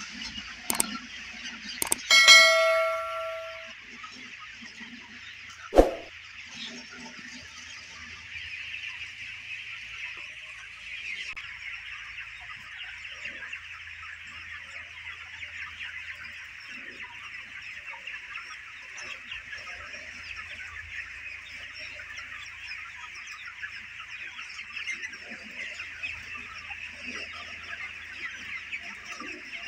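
Dense, steady chatter of a large flock of chickens crowded together in a poultry house. About two seconds in, a loud metallic clang rings for about a second, and a few sharp knocks sound near the start and again about six seconds in.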